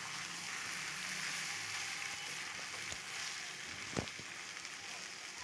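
Spiced masala and fried prawns sizzling in oil in a hot kadai as they are stirred together, a steady hiss with a few faint ticks and one sharp knock about four seconds in.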